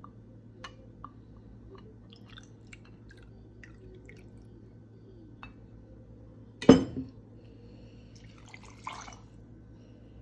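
Tequila poured from a glass bottle into a stainless steel jigger, with faint drips and small clicks. About two-thirds through comes one sharp knock, the loudest sound, as the glass bottle is set down on a wooden table, followed shortly by the measured shot being poured over ice cubes in a glass.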